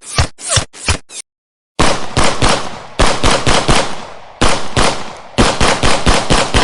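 Gunfire: a quick string of single shots, then after a short pause four rapid bursts of fire. Each burst is a fast rattle of several shots that fades off at its end.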